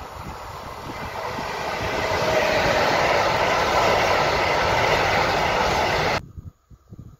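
Container freight train hauled by a Siemens Vectron electric locomotive passing close by: the steady rumble and rattle of the wagons' wheels on the rails grows louder over the first two seconds, holds, then cuts off suddenly about six seconds in.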